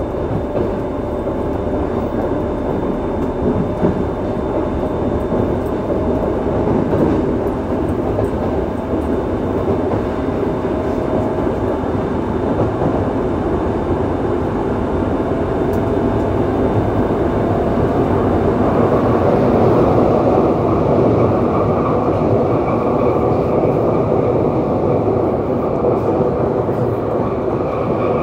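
Running noise inside a Yokohama Municipal Subway 3000A-series car with Mitsubishi GTO-VVVF traction control: a steady rumble of wheels on rail. From about twenty seconds in, a higher whine of the GTO inverter and traction motors comes in and rises slowly in pitch.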